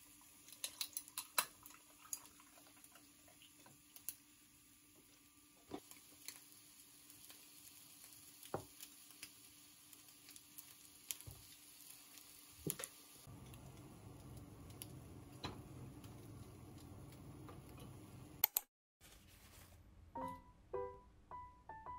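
Ice cubes clicking and cracking in a glass mug as bottled coffee and then soy milk are poured over them, with a cluster of sharp clicks in the first two seconds and scattered ones after. A soft steady hiss runs for a few seconds past the middle, and soft piano music begins near the end.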